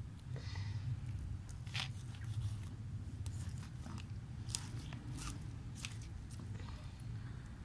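A knife cutting through a raw whole fish, the blade giving short, sharp, irregular cracks as it goes through, over a steady low hum.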